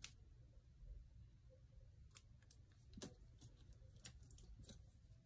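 A few faint, crisp clicks of scissors snipping wig lace at the hairline, the lace stiffened with the spray applied to it; the sharpest snip comes right at the start.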